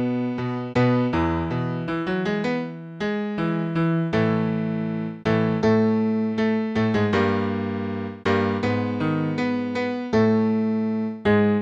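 Piano playing slow chords over a low bass line, each chord struck and left to fade before the next, about one or two a second.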